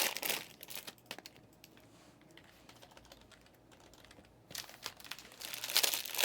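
Typing on a computer keyboard: a quick run of key clicks in about the first second, a nearly silent pause, then typing again from about four and a half seconds in.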